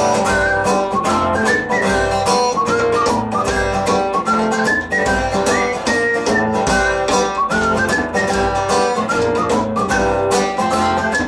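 Instrumental break of a live rock song: strummed guitar and bass keeping a steady rhythm under a lead melody with sliding notes.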